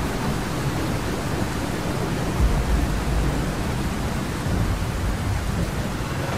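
Heavy rain and wind of a storm as a steady, loud hiss, with low rumbles swelling now and then, one about two and a half seconds in.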